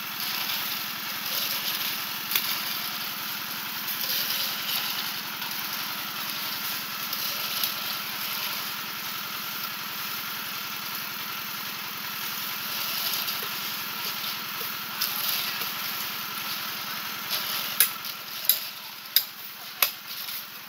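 Small engine running steadily, the drive motor of a concrete mixer. Near the end come several sharp knocks, a hand tool chopping at a piece of wood.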